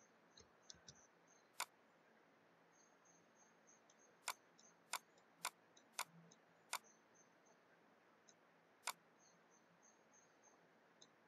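Computer mouse clicking about seven times, sharp single clicks with a quick run of five in the middle, as lines are drawn on a digital whiteboard. Otherwise near silence, with a faint high chirping repeating in the background.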